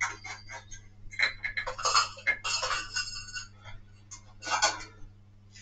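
Small metal tools and objects clinking and rattling as they are handled on a workbench: a run of short clinks, busiest in the middle, with a brief lull and another cluster near the end. A faint steady hum runs underneath.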